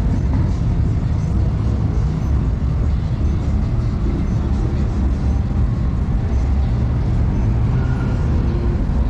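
City street traffic: cars passing on a busy road, a steady low rumble of engines and tyres.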